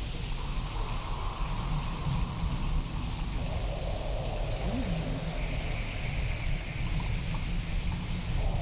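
Steady rain with a continuous deep, low rumble underneath. It comes from a real storm recording reworked with sound-design effects to sound otherworldly.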